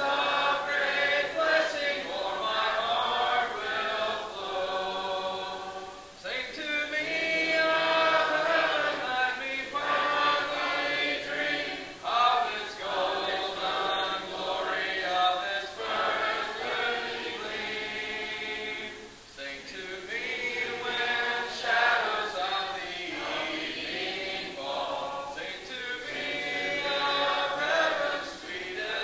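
A congregation singing a song a cappella, many voices holding long notes together, with short pauses between the lines.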